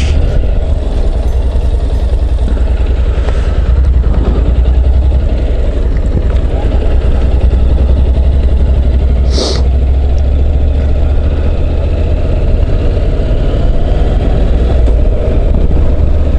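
Honda NC750X's parallel-twin engine running steadily while riding, with heavy wind rush over the microphone. A short hiss comes about nine seconds in.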